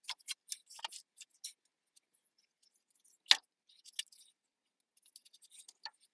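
Scattered light clicks and rustling from a nylon strap with a metal buckle being threaded and pulled tight by hand, with one sharp knock about three seconds in.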